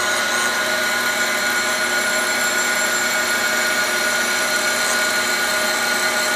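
Cylindrical grinder running steadily, its grinding wheel spinning against a shaft turning on dead centers: a constant whine of several steady tones over a hiss. It is making a very light pass of a tenth or two, barely cutting.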